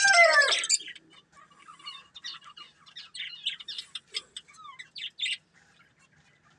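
Pet budgerigars calling: a loud call falling in pitch in the first second, then soft, rapid chattering chirps.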